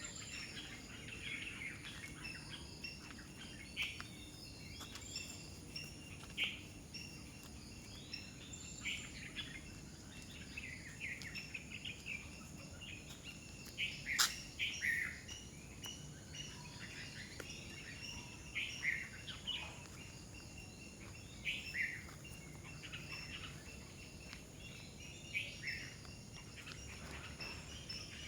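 Several wild birds calling with short chirps and whistles, over a steady high-pitched drone, with one sharp click about halfway through.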